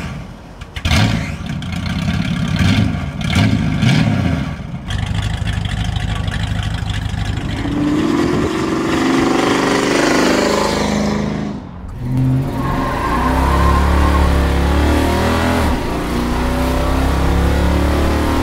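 1969½ Dodge Super Bee's 440 Six Pack V8 revving in short bursts, then pulling hard under acceleration with its pitch rising. There is a brief drop about twelve seconds in, and then it runs steadily at speed.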